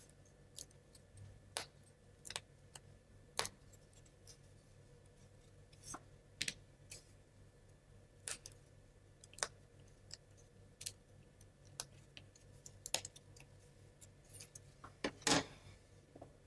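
Small laser-cut plywood model parts being pressed out of their board and handled: an irregular series of small sharp clicks and snaps of thin wood, the loudest about fifteen seconds in.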